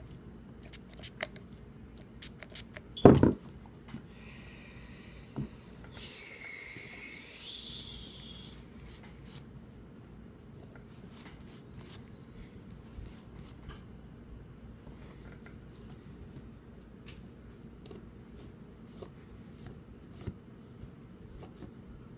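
REM Oil sprayed onto a revolver cylinder, hissing for a couple of seconds, then a toothbrush scrubbing the cylinder with light scratchy ticks. A loud knock comes about three seconds in.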